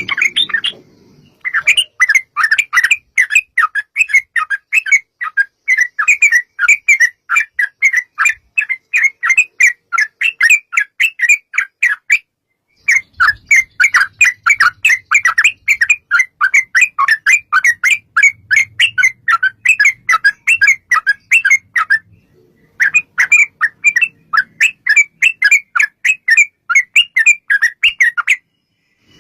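Yellow-vented bulbul (trucukan) singing a long, rapid chattering series of notes, about five a second, in three long runs with two brief breaks.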